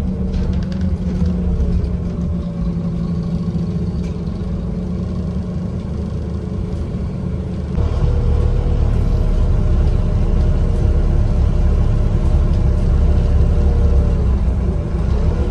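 Scania N230UD double-decker bus on the move, heard from inside the upper deck: its 9-litre five-cylinder diesel and the road noise run steadily, then grow louder and deeper about halfway through.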